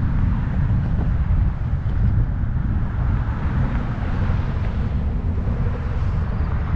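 Steady wind rumble on the microphone of a moving bicycle, mixed with road and traffic noise.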